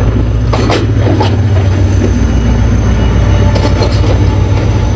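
Diesel locomotive passing close by along a station platform, its engine running with a loud, steady low rumble and a few brief sharp knocks.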